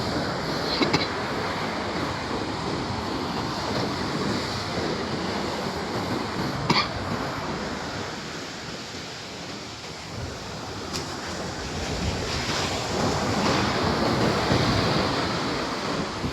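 Sea surf washing on a beach, a steady rush that ebbs and swells as waves break, with wind buffeting the microphone. There are a couple of sharp clicks, about a second in and again near the middle.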